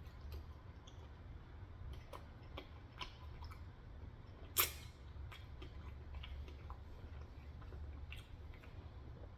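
A person quietly chewing a mouthful of potstickers and rice, with small wet mouth clicks and one sharper click about halfway through, over a low steady hum.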